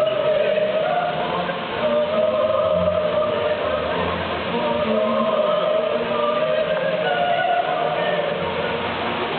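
Choral music with long held sung notes, over a steady rush of falling water from the grove's cascades.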